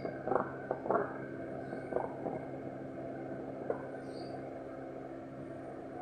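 Common cranes giving a few short, soft calls, scattered over the first four seconds, over a steady low hum.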